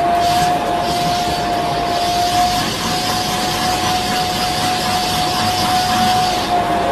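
Vacuum cleaner running steadily, a constant whine over a rushing hiss, its hose nozzle sucking at a cat's fur.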